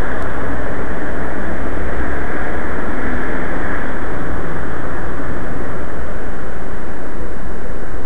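Loud, steady rushing noise, wind on the microphone of a moving camera mixed with street traffic.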